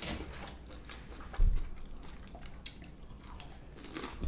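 Close-miked chewing and biting of crunchy fried food, with crisp crackles and wet mouth clicks. There is a single dull low thump about a second and a half in.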